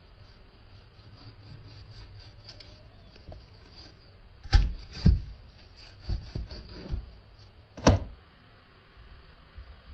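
A handful of dull knocks and thumps, the loudest about four and a half and eight seconds in, after a run of light clicks and rubbing.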